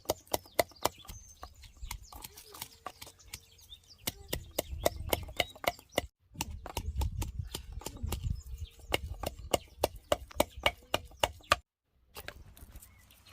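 A quick, irregular series of sharp knocks and clicks, several a second, with a low rumble beneath; it drops out briefly twice.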